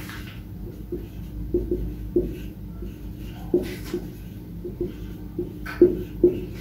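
Marker pen writing on a whiteboard: a string of short, irregular taps and squeaks as the letters and numbers are drawn, over a faint steady hum.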